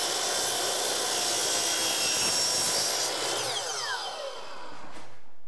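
DeWalt miter saw running and cutting through a piece of baseboard trim. About three seconds in the motor is let off and the blade spins down with a falling whine.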